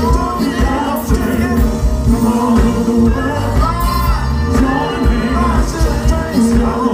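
A live soul band and vocal group performing through a concert sound system: male and female voices singing over drums, bass guitar and keyboards with a steady beat.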